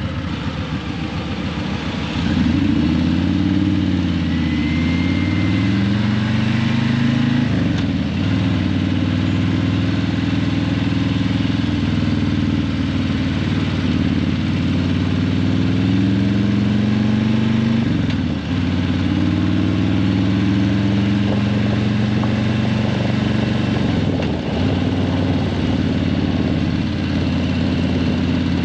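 Harley-Davidson Breakout 117's Milwaukee-Eight 117 V-twin running through Vance & Hines Eliminator 300 slip-on mufflers. The bike is ridden through traffic. The engine gets louder about two seconds in, then its pitch climbs and falls again and again as the rider opens the throttle and shifts, with a short dip about two-thirds of the way through.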